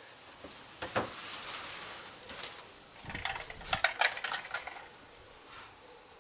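Fork oil being poured into a motorcycle fork tube, with clinks and knocks of the container against the metal and a quick cluster of clicks about three to four seconds in.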